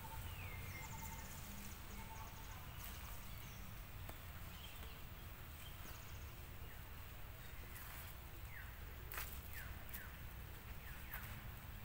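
Outdoor ambience with a steady low rumble, a few short falling chirps and faint clicks, most of them in the second half.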